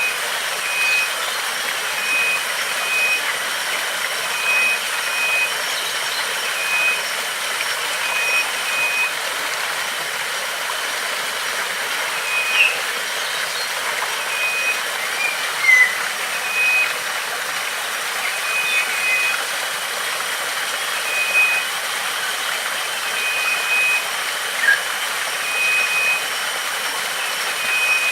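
Steady rushing of flowing water, with a repeated short two-note call at one pitch every second or two and a few brief bird chirps over it, plus a thin steady high insect-like whine.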